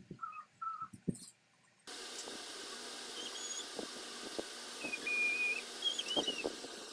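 A few short, steady whistle-like notes, each under a second, with gaps between them. About two seconds in a steady hiss starts abruptly and carries on, with a few faint high chirps and soft rustles.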